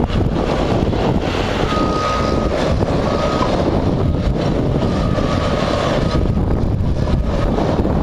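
Heavy earthmoving equipment (excavator, dump trucks and a bulldozer) running steadily, with a steady-pitched backup alarm beeping on and off a few times.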